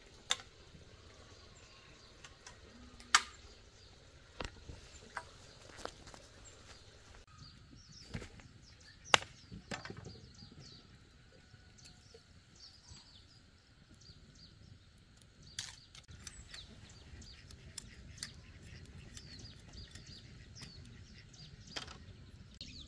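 Occasional sharp knocks and clicks at irregular times over a quiet background, with faint bird chirps.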